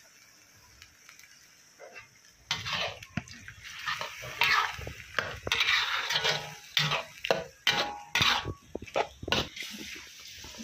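Metal spatula scraping and clattering against a wok, stirring chopped pineapple in chilli paste. The strokes start about two and a half seconds in, come thick and irregular, and stop shortly before the end.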